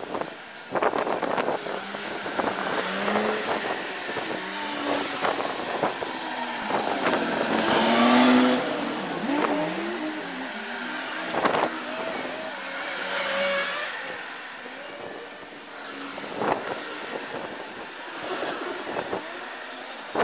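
Street traffic with cars and a bus driving past one after another, their engine notes rising and falling in pitch as each goes by. It is loudest about eight seconds in.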